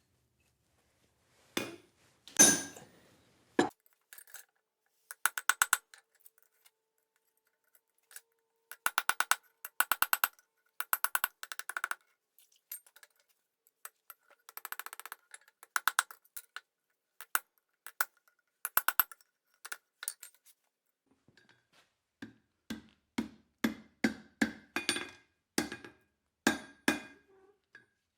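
Blacksmith's hammer striking a slot punch and the anvil, punching a slot in hot steel, the steel ringing with each blow. A few separate blows at first, then clusters of quick light taps, and near the end steady blows about twice a second.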